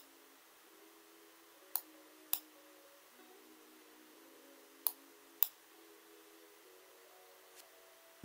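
Computer mouse clicking: two pairs of sharp clicks, each pair about half a second apart, over faint background music.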